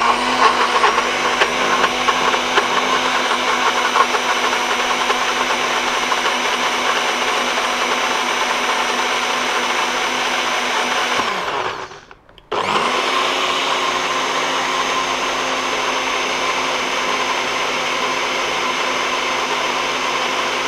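NutriBullet blender motor blitzing garlic, fresh herbs and olive oil into chimichurri. It runs steadily, winds down and stops about eleven seconds in, then starts again half a second later and runs on.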